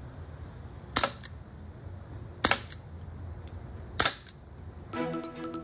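Crosman Vigilante CO2 air revolver firing .177 pellets: three sharp cracks about a second and a half apart, each followed by a fainter click.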